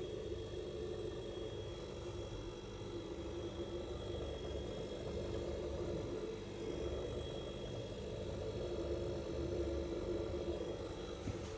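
A steady low mechanical hum with a faint high whine, holding level throughout.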